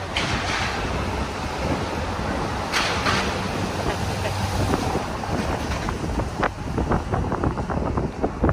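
Wind buffeting the microphone through an open window of a moving car, over road rumble, with two brief rushing swells in the first few seconds. The buffeting turns into quick, choppy gusts in the last few seconds as the car comes out of the tunnel.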